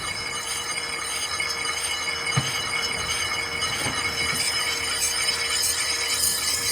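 Steady high-pitched grinding whine of a power tool abrading the steel of a knife blade, with a few light knocks along the way.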